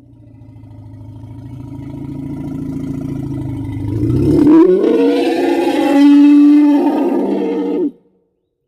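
An animal roar from a sound-effects library. A low, pulsing growl swells for about four seconds, then rises into a louder, higher-pitched roar that cuts off suddenly.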